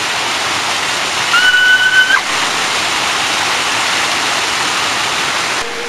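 Small waterfall pouring and splashing steadily onto a person sitting in it. About a second in, a brief high squeal is held for under a second.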